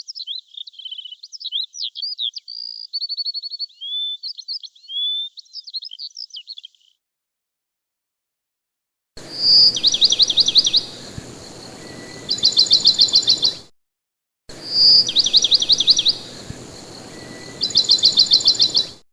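Songbirds singing. First comes a quick, varied run of high whistles, chirps and short trills lasting about seven seconds. After a short gap, a different bird gives a clear whistled note followed by fast, even trills, and this phrase is heard twice over against a faint background hiss.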